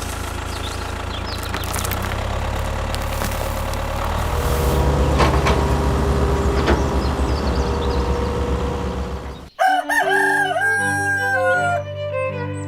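A rooster crowing over a steady low mechanical drone. About nine and a half seconds in it cuts off abruptly and string music begins.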